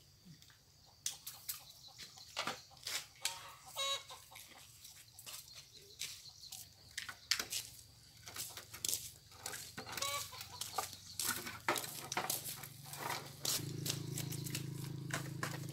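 Chickens clucking in short, scattered calls. A low steady hum comes in near the end.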